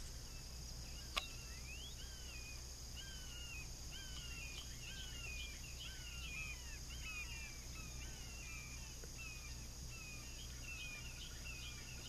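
Birds calling over and over in short, falling chirps, over a steady high-pitched insect drone. A single sharp click sounds about a second in.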